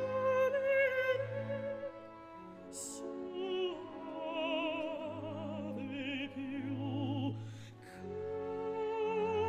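Classical background music, operatic in style: a melody with strong vibrato over sustained low accompaniment notes.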